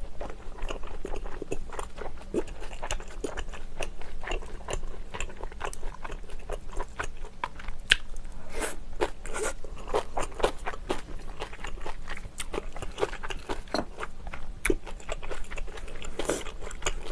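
Close-miked eating sounds: a person chewing and biting mouthfuls of food, with many short crisp crunches and mouth clicks.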